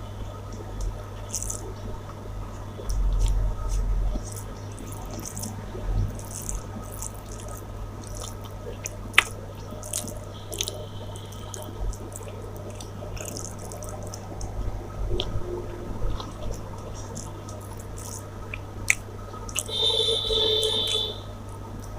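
Close-up wet eating sounds: chewing, squishing and a scatter of short wet mouth clicks and smacks from a mouthful of rice and curry, over a steady low hum. A brief tonal chirp sounds near the end.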